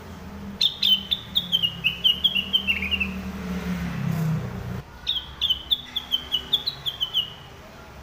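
Orange-spotted bulbul (cucak wilis, rengganis) singing two fast runs of short, sharp notes, each run about two seconds long, the notes stepping down in pitch through the first run. A low hum underneath stops abruptly about five seconds in.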